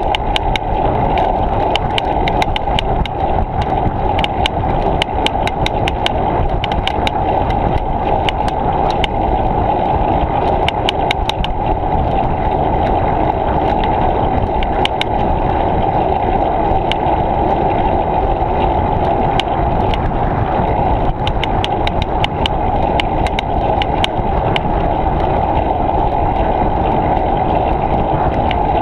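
A bicycle being ridden along a path, picked up by a GoPro action camera: a steady, loud rumble of wind and tyre vibration, with frequent small clicks and rattles.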